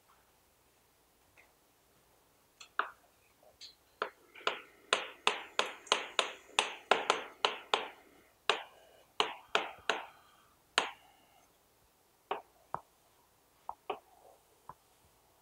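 Chalk tapping on a chalkboard as a heading is written: a quick run of sharp taps, about three a second, starting a few seconds in and lasting several seconds, then a few scattered taps near the end as a line is drawn.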